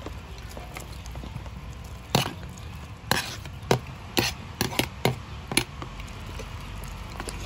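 A metal ladle knocking and scraping against the bowl and the pot as boiled chicken is pushed into simmering mushroom broth: a string of sharp clacks, about eight in a few seconds, over a low steady rumble.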